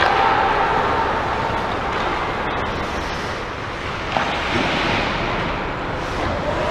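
Ice-rink game noise during a pickup hockey game: a steady rushing background with faint distant calls near the start and end, and one sharp knock of stick or puck about four seconds in.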